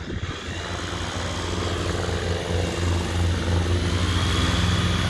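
Zenith Zodiac light aircraft's piston engine and propeller running at taxi power, growing steadily louder as the plane taxis closer.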